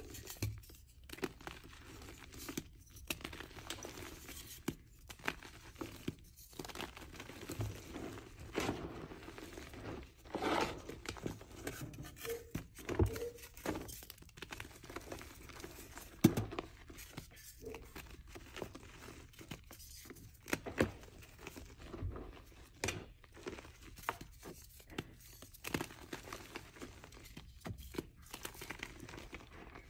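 Reformed chalk blocks being crumbled and crushed by hand into loose powder. It is a continuous run of soft crunching and crackling, with irregular sharper snaps as pieces break.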